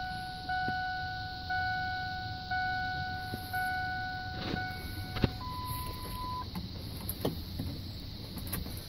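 Dashboard warning chime of a 1999 Ford F-150 with the key switched on, a pitched ding repeating about once a second five times, then one higher, steady beep about a second long. The ignition is on with the door open, and the truck shows a door-ajar warning. A couple of sharp clicks come after the chime stops.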